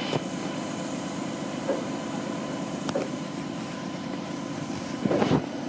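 Flatbed crane truck's diesel engine running steadily at idle, with a few short knocks, the loudest about five seconds in.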